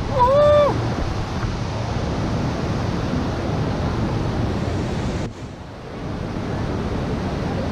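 Waterfall rushing below a suspension footbridge: a steady, loud wash of falling water, dipping briefly a little past five seconds in. A short call from a person's voice sounds just after the start.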